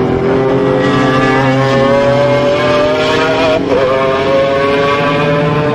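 A vehicle engine accelerating under load, its pitch rising steadily. About three and a half seconds in it drops for a gear change, then climbs again.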